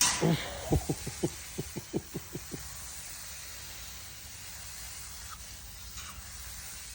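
Water spraying from a running tap with a steady hiss. In the first three seconds a short falling sound is followed by a quick run of about ten sharp low pops.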